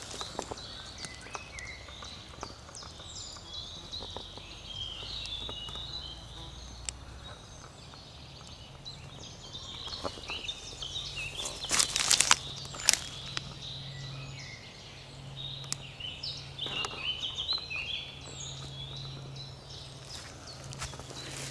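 Small songbirds singing in woodland, with footsteps and rustling in the leaf litter and a brief burst of sharp crackles and knocks about twelve seconds in. A faint steady low hum runs under the second half.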